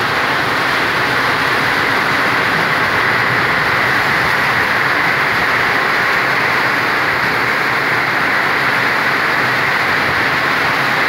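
Steady rain, an even hiss that stays at the same level throughout.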